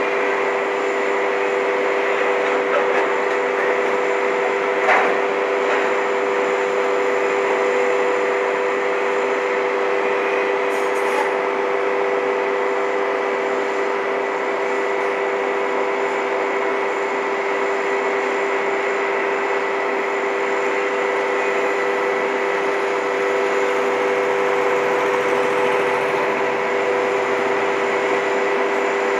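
Freight train of autorack cars rolling past: a steady rolling rumble with two steady whining tones over it, and one sharp click about five seconds in.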